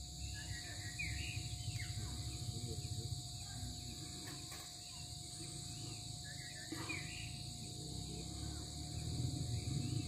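Insects droning steadily at several high pitches, with short bird chirps about a second in and again around seven seconds, over a low outdoor rumble.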